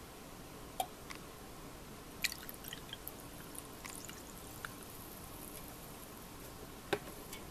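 A clear drink poured from a glass bottle into a glass of ice: quiet trickling and dripping, with a few sharp clinks of glass and ice, the loudest about two seconds in and another near the end.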